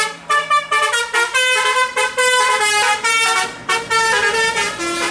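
Tour bus 'telolet' horn, a multi-tone musical air horn, playing a quick tune of short notes that step up and down in pitch several times a second.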